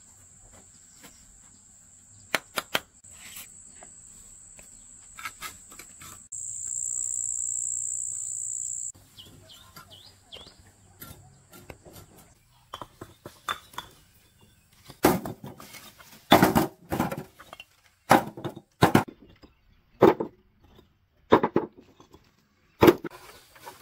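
An insect's steady high-pitched call, louder for a few seconds, stops about nine seconds in. From about fifteen seconds in comes a run of sharp knocks and clinks, roughly one a second.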